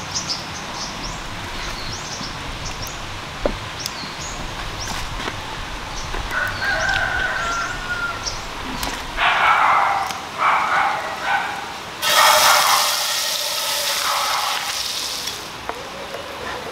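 A rooster crows loudly about nine seconds in, in several segments. Right after, butter sizzles in a hot iron pan over a wood fire for about three seconds, with small birds chirping before it.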